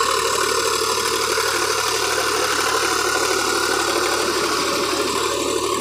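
Sonalika DI 47 RX 4WD tractor's diesel engine running steadily under load as it pulls a tillage implement through the soil.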